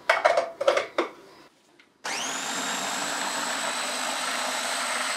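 A few short clattering knocks, then about two seconds in an electric hand (stick) blender switches on, its whine rising quickly as the motor spins up, and runs steadily, puréeing a meat-and-vegetable dish smooth.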